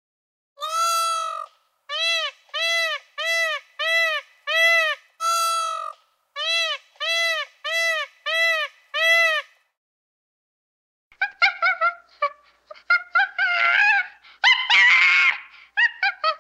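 An animal calling: about a dozen short, evenly paced calls, each rising and falling in pitch, then after a pause of a second or two a busier run of short chirps and wavering calls.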